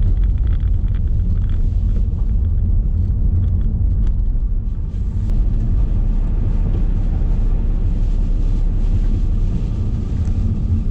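Steady low rumble of a car driving on a wet, flooded road, heard from inside the cabin.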